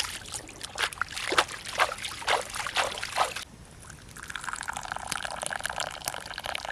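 Water trickling and splashing in irregular spurts, settling after about three and a half seconds into a steadier running hiss.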